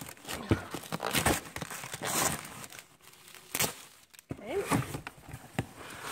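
Clear packing tape being torn off a cardboard box and the flaps pulled open, with crinkling and rustling of plastic and tinsel garland. Irregular scrapes and crackles.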